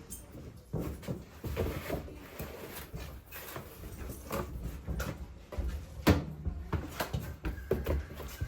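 Irregular knocks, bumps and clatter of boxes and bottles being handled and packed, with one sharp knock about six seconds in.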